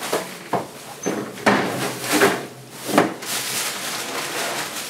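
Kitchen handling noises: about five short rustles and knocks over three seconds as items are moved and handled.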